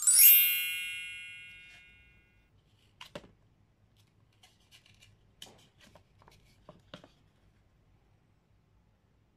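A bright chime sound effect rings out at once and fades away over about two seconds. Then a few soft clicks and taps as the small cardboard pages of a board book are handled and turned.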